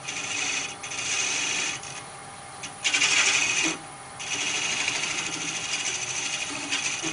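A turning tool cutting a tenon on a knob blank spinning on a wood lathe: a hissing scrape in four passes of about a second each, the loudest about three seconds in, with short gaps between and a steady hum underneath.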